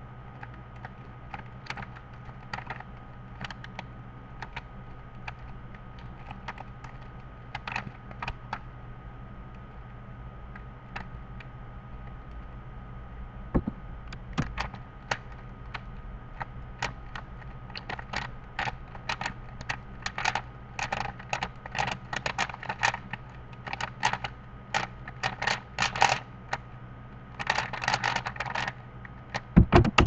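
Plastic 3x3 Rubik's cube being turned fast in a speedsolve: runs of quick clicks and clacks as the layers snap round, sparse at first and packing into rapid bursts in the second half, with two louder knocks near the end. A steady low hum sits underneath.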